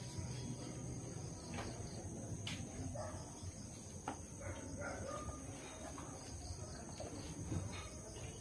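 Steady high-pitched chirring of crickets, with a few faint sharp clicks along the way.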